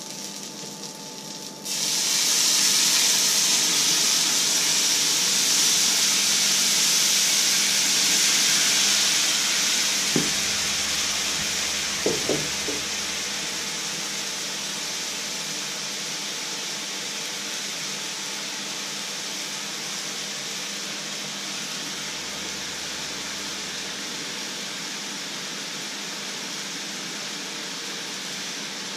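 Liquid poured into a very hot black pan on the stove: a loud sizzle starts suddenly about two seconds in, then the hiss of the liquid boiling off slowly dies down. A couple of short knocks come around the middle.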